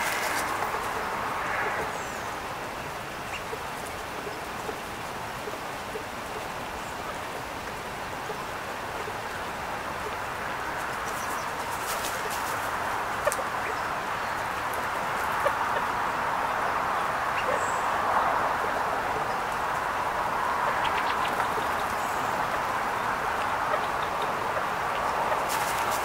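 A dove and California quail pecking seed off a wooden picnic table, a few scattered light clicks over a steady outdoor background hiss, with a few faint high chirps.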